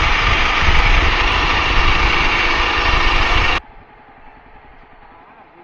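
Motorcycle engine running and loud wind and road rush on the microphone while riding at highway speed. It cuts off abruptly about three and a half seconds in, leaving a much quieter steady background.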